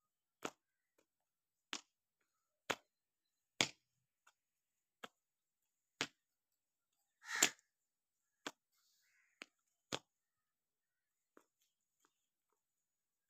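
A scattered series of short, sharp clicks or taps, roughly one a second, with one longer, louder scrape about seven seconds in.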